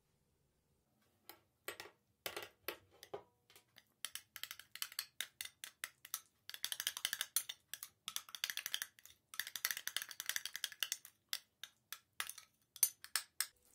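Metal spoon clinking and scraping against a glass bowl while stirring a thick mayonnaise and mustard sauce. Quick taps start about a second in, give way to two longer stretches of steady scraping in the middle, then more taps near the end.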